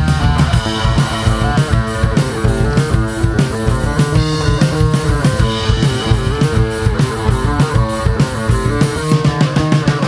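Rock band recording: guitars playing over drums with a steady beat.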